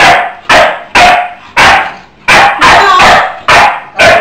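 A shar-pei barking over and over at its owner as she scolds it: about eight sharp barks, roughly two a second, with a brief pause near the middle.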